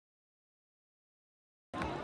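Dead silence, an audio gap with no sound at all, until about a second and a half in, when a steady haze of background noise cuts back in.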